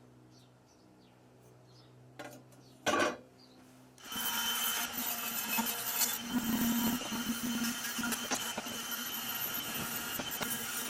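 A faint steady low hum, then a couple of short knocks, then about four seconds in a power tool starts working against a surface with a loud, continuous abrasive grinding.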